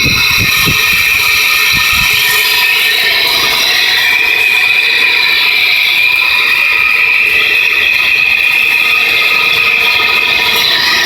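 Steady, high-pitched squealing whine from the engine of a 1993 Nissan Pathfinder SE, its pitch shifting slightly about four seconds in. The noise began a few weeks after the timing and accessory belts were replaced, and the owner wonders whether the oil pump is failing.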